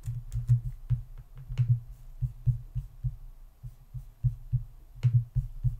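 Computer keyboard typing and mouse clicks, heard mostly as dull low thumps of the keystrokes a few times a second, with a few sharper clicks about a second and a half in and near the end.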